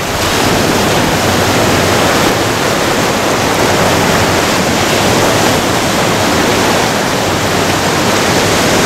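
Surf washing up a sandy beach and swirling around rocks: a steady rushing hiss of breaking and receding waves.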